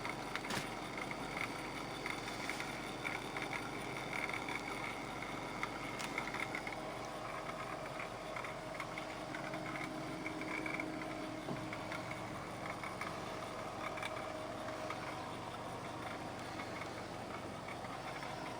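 Ford Freestyle's engine idling with the air conditioning running, heard from inside the cabin: a steady, quiet hum with no rattling noise.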